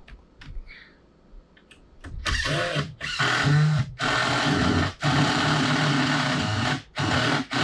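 Power drill running in about six short bursts, stopping briefly between each, starting about two seconds in. A few small clicks come before it.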